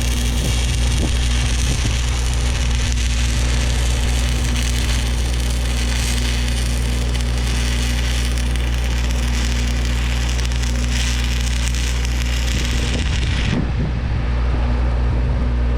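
Electric welding arc crackling and sizzling steadily over a continuous electrical hum; the arc stops about thirteen and a half seconds in while the hum carries on.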